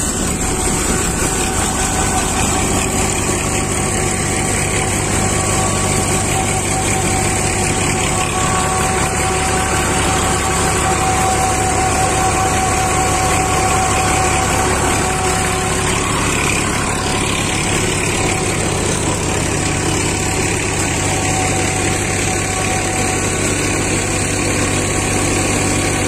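Multicrop thresher running steadily with its driving engine: a continuous, even mechanical drone with a steady hum.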